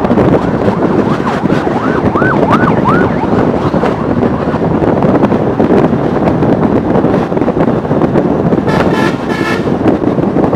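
Wind buffeting the microphone and engine and road noise from a motorcycle riding on a highway beside a dump truck. About two seconds in comes a quick warbling horn of four or five rising-and-falling whoops, and near the end two short horn blasts.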